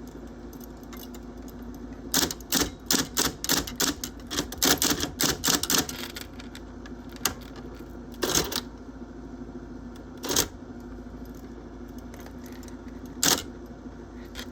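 Olympia Report De Luxe electric typewriter humming steadily while its keys strike: a quick run of about a dozen strokes, then three single strokes spaced a few seconds apart. The strikes go through the white correction half of the ribbon, whiting out typed letters.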